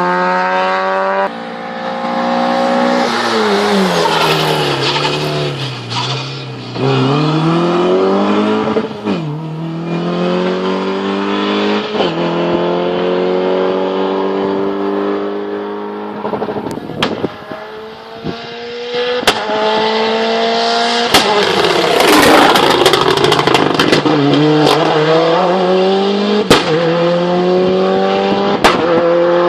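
Race car engine at a hill climb revving hard, its pitch climbing and dropping again and again, with sudden drops like gear changes. In the second half come several sharp cracks.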